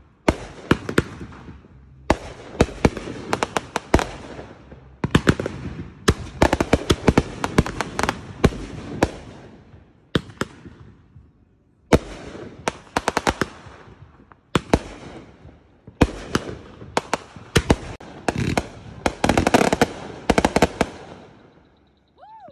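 Fireworks going off in rapid volleys of sharp bangs with crackling after them. The volleys come in clusters with short pauses, a clear break about eleven seconds in, and die away near the end.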